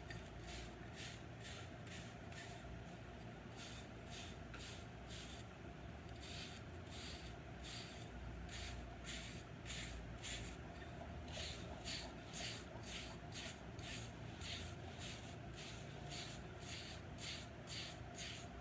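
A bristle hair brush stroked repeatedly over short, close-cropped wave hair: a steady run of soft swishing strokes, about two to three a second.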